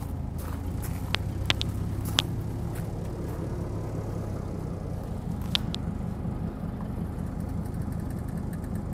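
Forklift engine idling steadily, with a few sharp clicks in the first two seconds and one more a little past halfway.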